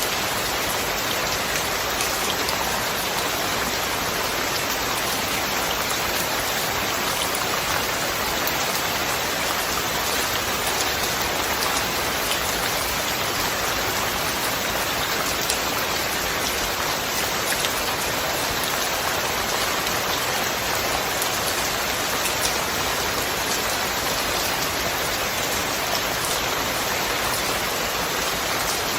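Steady rain: an even hiss with the tapping of single drops scattered through it.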